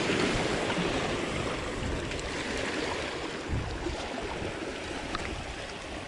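Steady rushing wash of sea water, easing slightly, with a few faint ticks.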